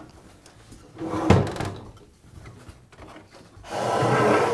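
Makita table saw being turned over onto its top on a wooden workbench: a solid knock about a second in as the saw sets down, then a longer scraping slide of the saw body across the bench near the end.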